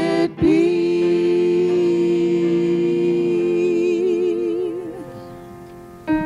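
Worship singers hold the long final note of a hymn, with vibrato near the end, fading out about five seconds in. Just before the end a keyboard chord begins the next song's introduction.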